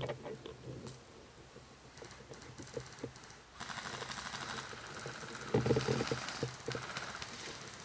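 Electric airsoft gun firing a long full-auto burst: a rapid clicking rattle that starts a little before halfway and runs for about four seconds, with a few dull knocks near the three-quarter mark.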